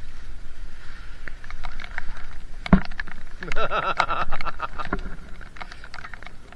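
Rain pattering and plastic rustling on a poncho close to the microphone, with scattered knocks and footsteps on a wet path; one louder knock just before three seconds in and a brief muffled voice about a second later.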